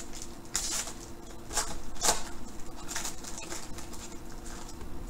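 A trading-card pack wrapper crinkling and tearing as it is ripped open by hand, in several short rustling bursts, the loudest about two seconds in.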